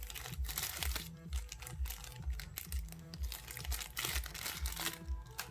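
Background music with a steady bass beat, about two and a half beats a second, over bouts of crinkling from handled plastic packaging, the loudest around the first second and again about four seconds in.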